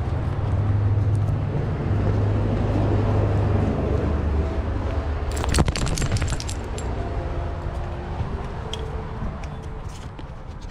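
A steady low rumble, then a short burst of metallic clinking and jingling about five and a half seconds in, from the metal leash clips and buckles on a harness-mounted camera as the dog moves. Afterwards the sound drops to a quieter background with a few faint tones.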